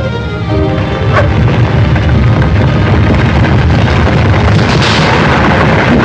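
A continuous heavy rumble, like a volcano erupting, with film music underneath; it builds up about a second in and then holds loud and steady.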